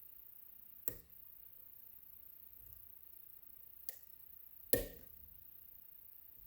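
Three sharp little metallic clicks from lock-picking tools working inside an Ikon WSW lock cylinder, about a second in, about four seconds in and, loudest, just before five seconds.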